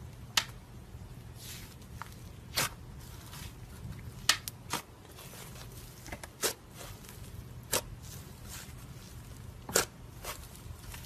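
Thick beige slime pressed and pulled apart by hand, giving off sharp, sticky pops and clicks at irregular intervals, about nine in all, over a low steady hum.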